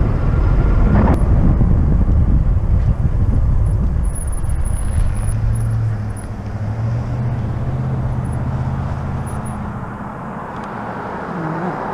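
Ride noise from an electric bike moving along a road: low wind rumble on the bike-mounted camera's microphone, with a vehicle's low steady engine hum from about four to nine seconds in. The rumble eases about halfway.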